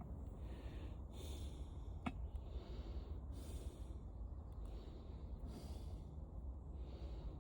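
A man breathing audibly through his nose close to the microphone, about one breath every two seconds, with a single sharp click about two seconds in.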